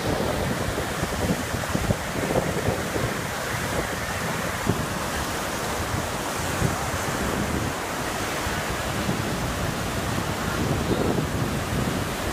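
Surf breaking and washing up a sandy beach in a steady wash, with wind buffeting the microphone.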